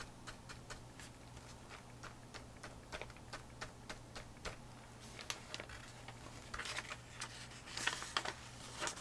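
Dry, rough paintbrush dabbing paint onto a paper book page in soft taps, about three a second. Near the end there are a few louder scratchy strokes of brush and paper.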